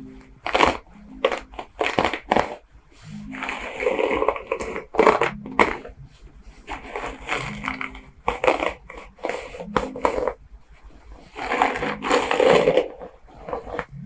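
Detangler hairbrush raked through long hair close to the microphone: crunchy, crackling strokes with sharp clicks, the longest and loudest about four seconds in and again about twelve seconds in.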